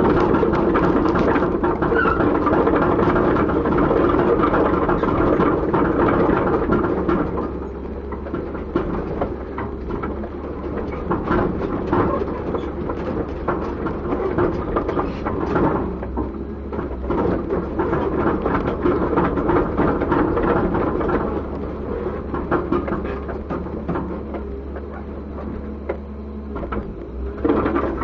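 Komatsu PC200-7 hydraulic excavator's diesel engine running, louder for about the first seven seconds and then easing back, with irregular clanks and knocks over the steady engine drone.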